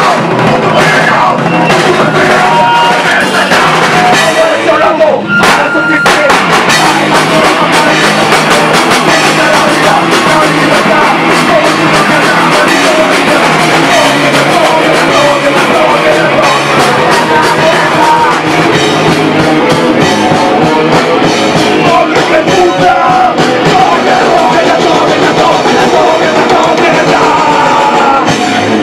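Live punk rock band playing loud, with distorted electric guitar and a pounding drum kit. The song cuts off at the very end.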